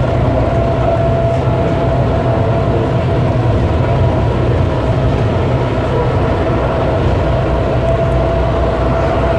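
Airport people-mover tram running through a tunnel, heard from inside the car: a steady rumble with a whine held at one pitch.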